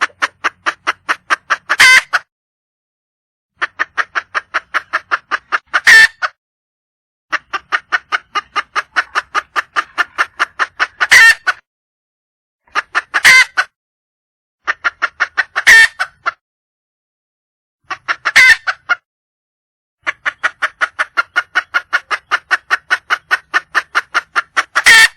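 Wild red junglefowl hen clucking in rapid runs of about seven clucks a second, seven runs of two to four seconds each, every run ending on one louder, sharp note: a hen calling for a cock.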